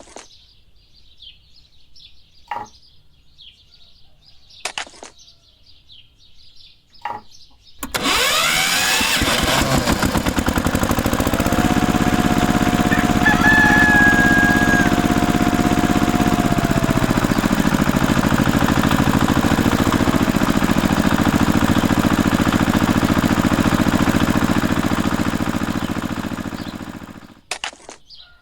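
A small motor starts abruptly, runs steadily with a fast, even buzzing rattle for nearly twenty seconds, then winds down and stops near the end.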